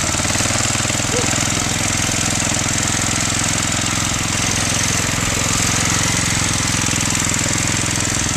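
Small old miner's tractor engine running with a fast, steady chug as the tractor drives along, heard close up from the seat.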